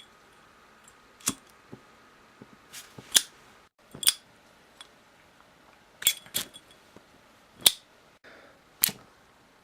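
Zippo-style flip-top lighter's metal lid flicked open and snapped shut during lighter tricks: a series of sharp metallic clicks and clinks at uneven intervals, some with a brief ring.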